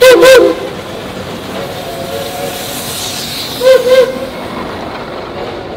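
Geared steam locomotive passing close by, its steam whistle giving two quick toots at the start and two more about four seconds in, each toot bending up and down in pitch. Between the toots come the steady running noise and steam hiss of the passing train.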